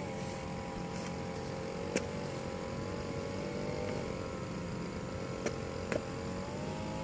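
A motor running steadily, a continuous hum with a few steady tones that drift slightly in pitch, with a couple of faint taps.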